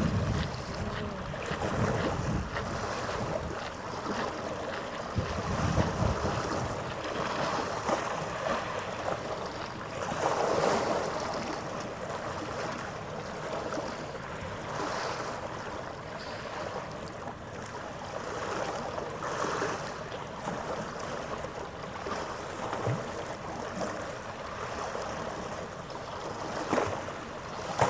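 Wind gusting on the microphone over lapping harbour water, with a faint steady hum underneath.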